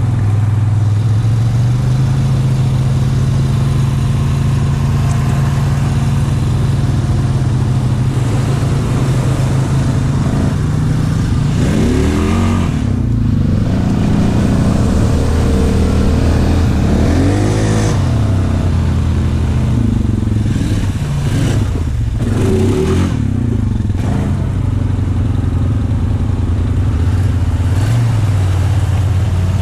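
Honda 520 ATV's single-cylinder engine running steadily, then revving up and down repeatedly through the middle stretch, then settling back to a steady run.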